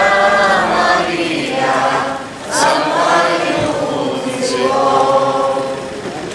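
A group of people in the procession singing a hymn together in long held notes, with a brief break about two and a half seconds in.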